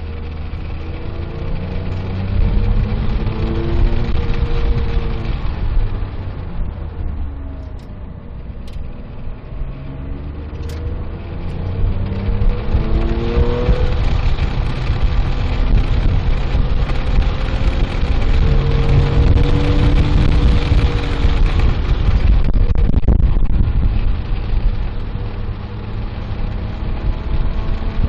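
Porsche 997.1 GT3's 3.6-litre flat-six engine heard from inside the cabin on track, rising in pitch under acceleration and dropping away in between, several times over, with road and wind noise underneath.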